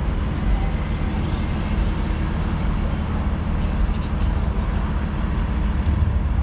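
Street traffic: cars crossing the intersection, a steady wash of engine and tyre noise over a heavy low rumble.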